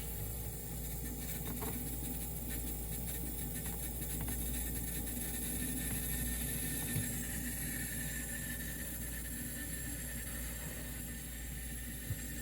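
1980s Gold Star mini refrigerator's R12 compressor running after start-up: a quiet, steady hum, with a few faint knocks.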